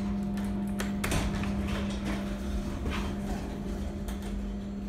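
Schindler 330A hydraulic elevator cab doors sliding open at the door-open button, with a few light knocks over a steady electrical hum.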